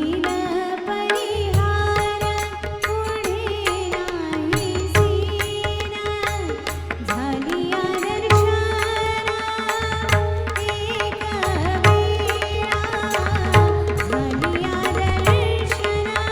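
Indian devotional vocal music: a singer's voice holding and ornamenting long gliding notes over a steady drone, accompanied throughout by tabla and pakhawaj strokes with a deep, resonant bass.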